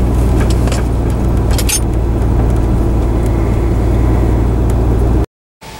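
A motor vehicle driving: a steady, loud low rumble of engine and road noise, with a few faint clicks, cut off abruptly near the end.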